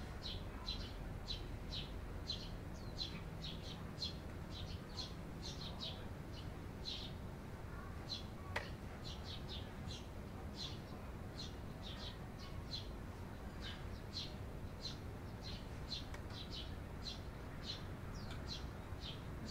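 Eurasian tree sparrows chirping: a steady string of short chirps, about three a second, over a low steady rumble, with a single sharp click about eight and a half seconds in.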